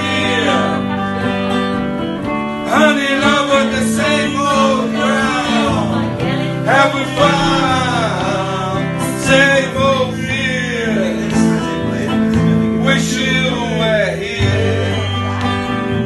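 Music: guitar with a singing voice, with notes that slide in pitch every few seconds.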